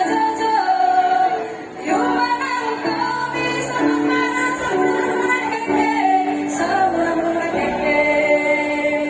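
Women's choir singing in several parts, holding long sustained notes, with a brief drop in level about two seconds in.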